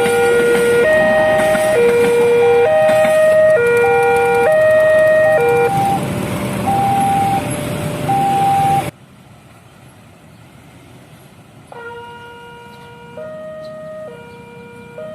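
Railway level-crossing warning siren sounding two alternating tones, low then high, each held just under a second, over a loud rumble. About six seconds in it changes to shorter, higher beeps, and it cuts off suddenly near nine seconds. The two-tone siren comes back fainter a few seconds later.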